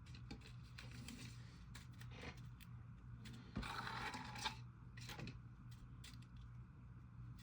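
Jelly slime being worked by hand, making small clicking and squishing sounds, with a louder, longer squelch about halfway through.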